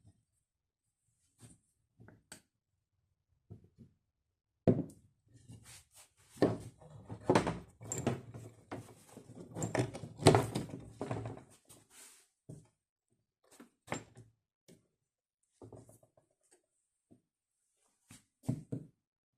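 Irregular knocks and thunks, a few scattered ones at first, a dense clattering run in the middle, then a few more near the end.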